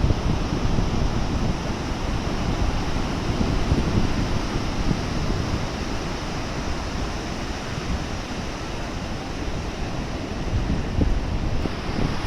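Sea surf washing in as a continuous rushing noise, with wind buffeting the microphone in a low, gusty rumble.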